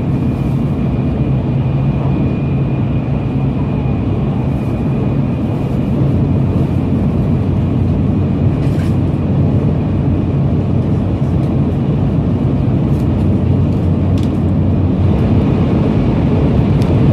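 Running noise of a Shinkansen high-speed train heard inside the passenger cabin: a steady rumble with a low hum. It grows louder near the end as the train enters a tunnel.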